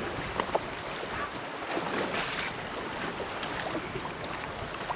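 Wind-driven lake chop lapping and slapping against the hull of a bass boat, with wind on the microphone and a few small knocks; a brief louder rush of water comes about two seconds in.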